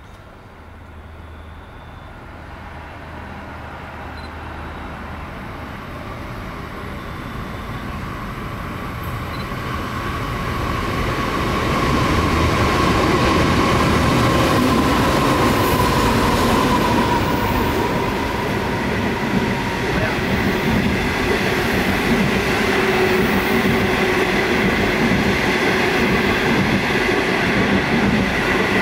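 Great Southern Rail passenger train hauled by NR-class diesel-electric locomotives approaching and running along the platform. Its rumble grows steadily louder over about twelve seconds. As the locomotives pass, a high whine drops a little in pitch, then the stainless-steel carriages roll by with steady wheel noise and a thin high squeal.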